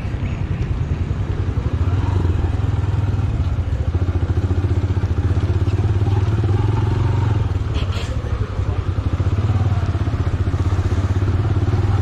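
Motorcycle engine running steadily at low road speed, heard from the rider's seat, with a brief sharp click about eight seconds in.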